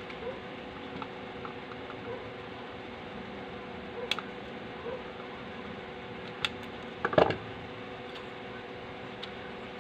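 A few light clicks and one louder knock about seven seconds in, as an amplifier circuit board with its aluminium heatsink bracket is handled and turned over on a workbench, over a steady background hum.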